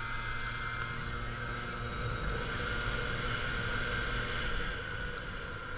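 Small motor scooter's engine running steadily as it rides along the road.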